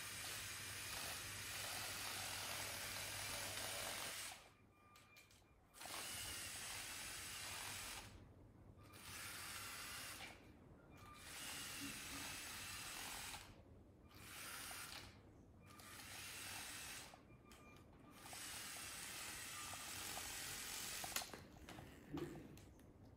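Faint whirring of a LEGO Mindstorms robot truck's electric motors and gear trains as it drives on a hard floor, cutting out and starting again several times as it is steered. Near the end come a few sharp clicks as the plastic model is handled.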